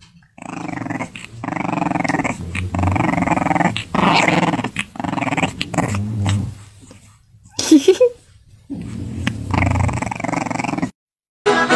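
White French bulldog puppy growling in several long stretches while it is handled, with one short high yip about two-thirds of the way through.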